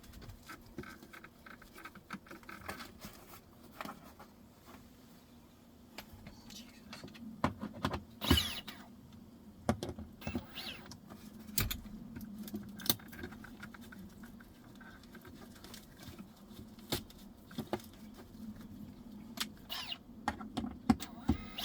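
Scattered clicks, taps and knocks of hand tools, screws and wooden parts being handled during cabinet work, irregular and fairly quiet, over a faint steady hum.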